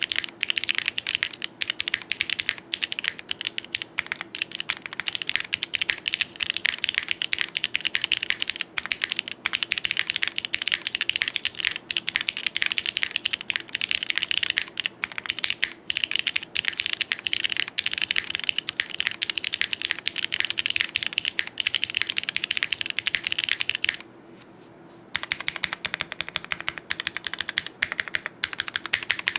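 Fast, continuous typing on a Vertex Arc60 mechanical keyboard with lubed Gateron X switches in a plateless mount and GMK keycaps: a dense stream of key clacks, with a pause of about a second near the end.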